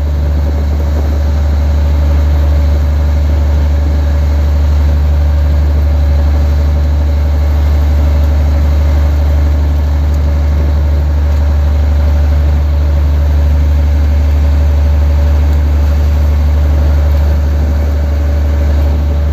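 Fishing boat's engine running steadily: a loud, unchanging low drone with a steady hum above it.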